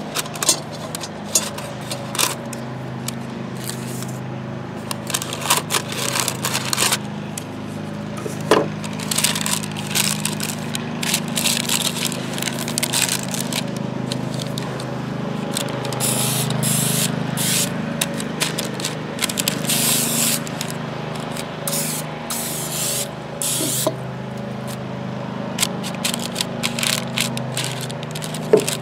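Parchment paper crinkling and rustling as it is pressed and folded into a cast iron Dutch oven, with short hissing bursts of aerosol cooking spray about halfway through. A steady low hum runs underneath.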